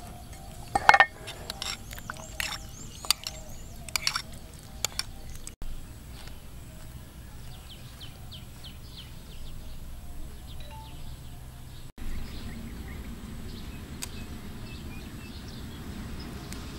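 Metal spoon clinking against a bowl as a chili-garlic dipping sauce is stirred, a run of sharp clinks in the first five seconds. Then faint bird chirps over a steady outdoor background.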